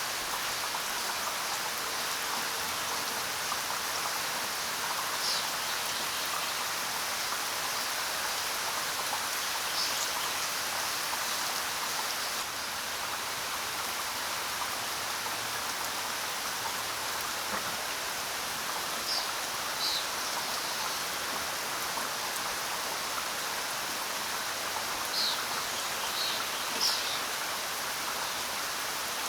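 Steady rain falling. A few short, high bird chirps come through it now and then.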